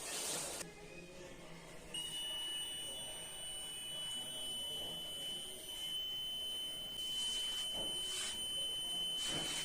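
Rain alarm's buzzer sounding a continuous, steady high-pitched tone that starts about two seconds in: the alarm set off by water on its blade sensor.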